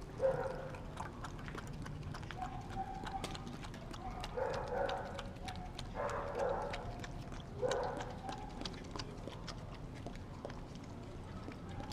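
Dog eating wet raw food from a stainless steel bowl, licking and chewing with many quick clicks of tongue and teeth against the metal, with a few louder knocks of the bowl.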